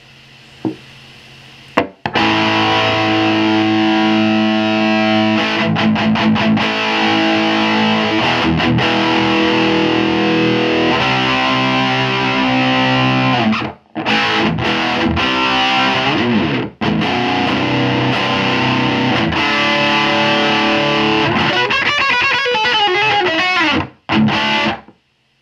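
Electric guitar played through a Peavey Classic 50 410 tube amp (EL84 power tubes) on its lead channel with the controls about noon: distorted guitar from the 4x10 speakers, play-testing the amp after repair. The playing starts about two seconds in, has a few short breaks, ends with bent notes and stops just before the end.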